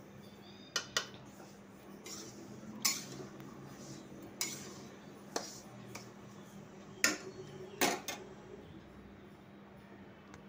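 Metal spoon clinking and scraping against a metal pan while scooping roasted white sesame seeds, about eight sharp clinks at irregular intervals. Between them runs the soft hiss of the seeds sliding and pouring.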